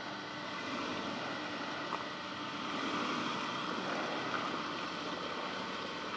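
Subaru Forester XT driving slowly through mud: a steady noise of engine and tyres.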